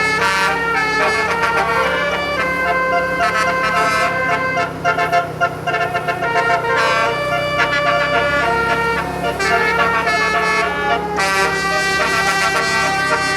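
Telolet bus horn playing a melody: several horn tones sound together and step from note to note, with a steady low hum underneath.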